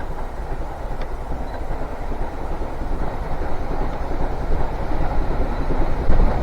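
A steam-hauled train approaching, its low rumble growing steadily louder.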